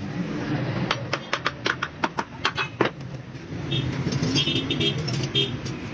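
Vehicle engine hum with a run of sharp clicks or taps in the first three seconds, then short high-pitched tones in the second half.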